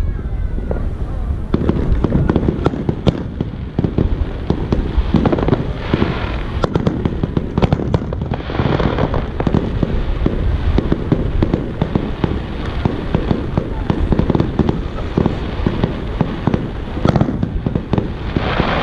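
Fireworks display going off: a dense, continuous run of sharp bangs and cracks, swelling several times into bursts of crackling.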